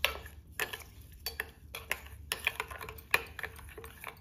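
Steel spoon stirring chia seeds in water in a stainless steel bowl, clinking against the bowl's side in an uneven string of sharp ringing taps, two or three a second.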